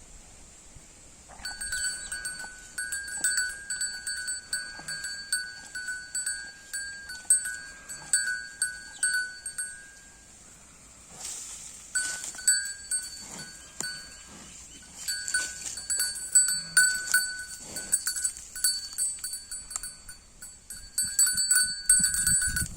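A small metal bell, such as one hung on a grazing cow's neck, jingling in quick irregular clusters as the animal moves its head, with a pause of about two seconds near the middle.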